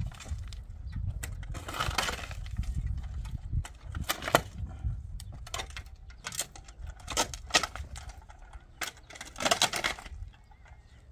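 Steel shovel scraping and scooping through stony dirt, with sharp clinks and knocks as metal strikes rocks, at an irregular pace.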